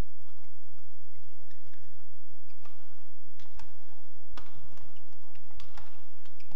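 Badminton rackets striking a shuttlecock during a fast doubles exchange: a series of sharp cracks, each less than a second apart, starting about two and a half seconds in, over a steady low hum.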